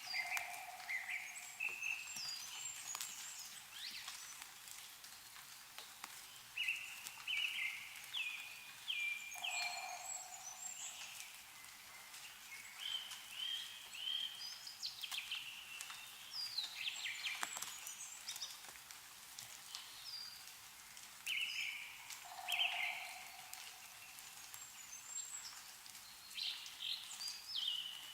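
A songbird singing short phrases of several quick notes, repeated every few seconds, with scattered drops of meltwater ticking down from snow-laden trees.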